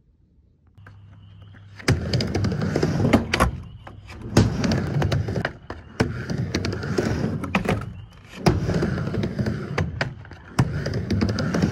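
Skateboard wheels rolling over concrete, coming in about two seconds in, broken by repeated sharp clacks of the board and several short lulls.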